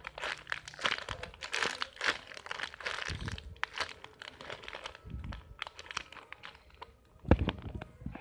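Clear plastic packaging bag crinkling and crackling in irregular bursts as the banana squishy inside it is squeezed and turned in the hands. A few low thumps, the loudest sounds, come about seven seconds in.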